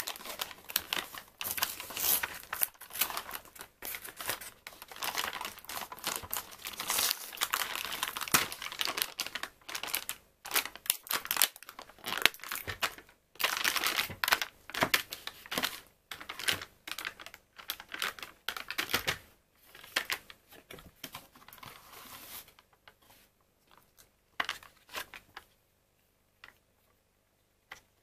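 Cardboard packaging of a pudding four-pack being torn open and crumpled by hand, a dense crackling with short pauses. For the last several seconds it thins to scattered clicks and taps as the plastic pudding cups are handled.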